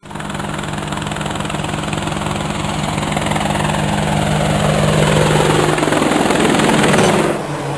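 Quadcopter drone rotors buzzing in a sound-designed intro. The hum starts abruptly, holds steady and grows louder, with a falling sweep through the middle, then eases off about seven seconds in.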